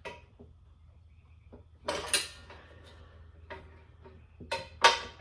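Sharp metal clanks and clinks of the lever tool against a manual motorcycle tire changer as it is worked under the tire's bottom bead, the loudest clank just before the end.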